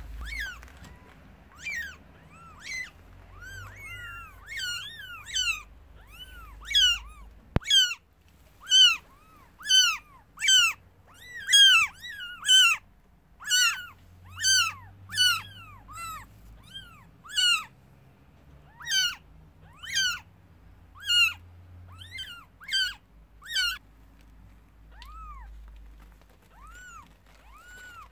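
Newborn kittens, about five or six days old, mewing: a long string of short, high-pitched cries, each rising then falling in pitch, coming about once a second. The cries are loudest in the middle and thin out near the end.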